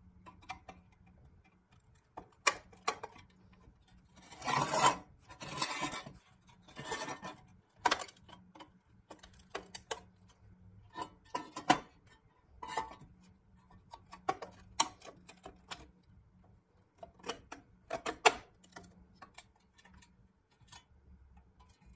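Hand disassembly of a rusty pressed-steel toy truck cab: a screwdriver prying and scraping at the metal, with scattered clicks and knocks and a few longer scrapes about a quarter of the way in.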